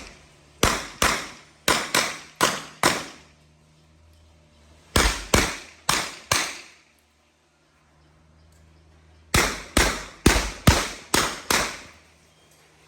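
Handgun shots fired in rapid strings: a pair, then two strings of four, then a string of about seven, with pauses of roughly two seconds between strings.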